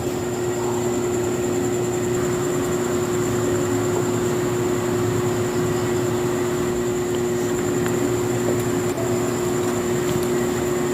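Steady mechanical hum: a constant low tone with a faint high whine over an even noise.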